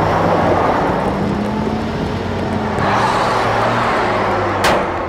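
Fire truck engine running steadily as the truck drives hard across open ground, a cartoon sound effect. About four and a half seconds in there is a single sharp hit.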